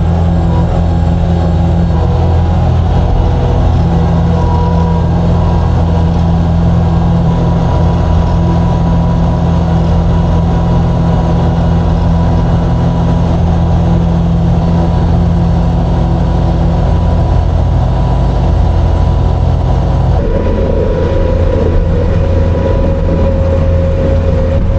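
Grain vacuum and the tractor engine driving it, running steadily under load. About 20 seconds in, the rushing part of the sound drops away and a steadier hum is left.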